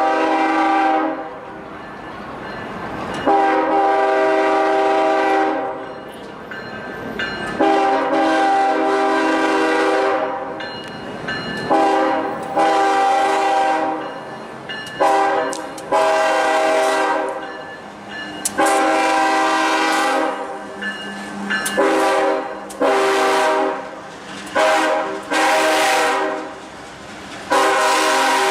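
Second-generation Nathan Airchime K5HL five-chime locomotive air horn sounding a loud, steady chord in a long series of about a dozen blasts. Long blasts of about two seconds alternate with short ones.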